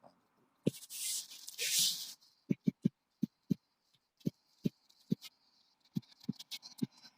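Close handling noise: a brief rustle with clicks, then about a dozen soft, dull taps at uneven intervals.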